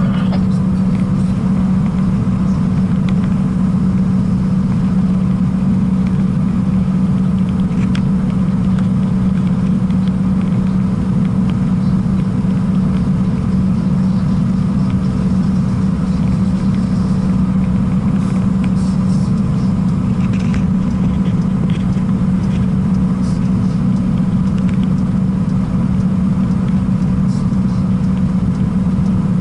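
Scania P-380 dump truck's diesel engine running at a steady highway cruise, heard inside the cab as a constant low drone with tyre and road noise.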